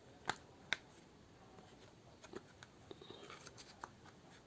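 Two sharp plastic clicks about a third and three quarters of a second in, then scattered faint ticks: the filter and dust compartment of a small robot vacuum being taken out by hand.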